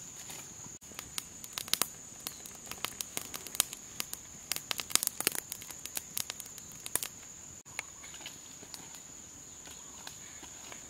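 Small wood fire crackling, with a dense run of sharp pops and snaps between about one and seven seconds in, over a steady high-pitched insect drone.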